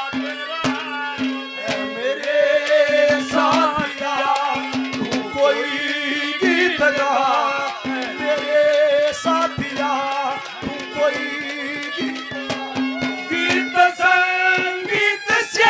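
Live Haryanvi ragni folk music: a wavering melody line over regular hand-drum strokes.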